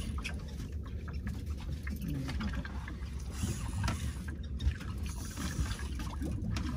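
Water lapping and trickling against a small boat's hull, over a steady low rumble, with scattered light clicks.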